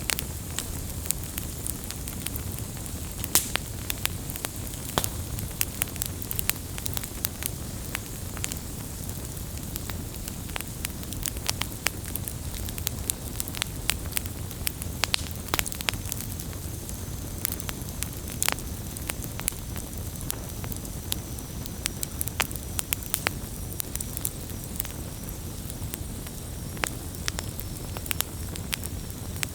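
Wood campfire burning: a steady low rush of flame with frequent irregular sharp crackles and pops from the burning wood.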